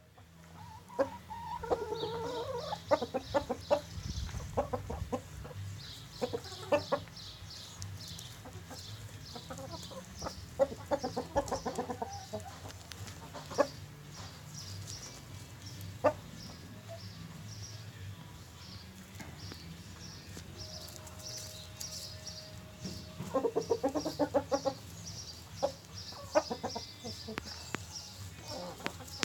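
Chicken flock clucking, in clusters of quick calls about a second in, around the middle and near the end, with single clucks between. A fast, even, high-pitched chirping and a low steady hum run under them.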